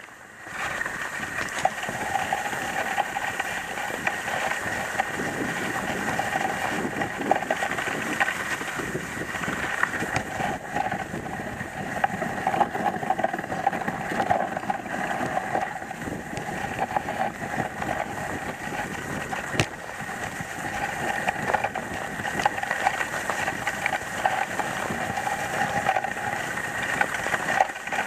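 Dog sled running over a snowy trail behind its dog team: a steady scraping rush of the runners on snow.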